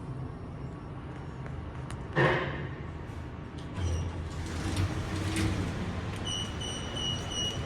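Lift arriving: a sharp clunk about two seconds in, then a low rumble as the doors slide, followed near the end by a run of short high electronic beeps.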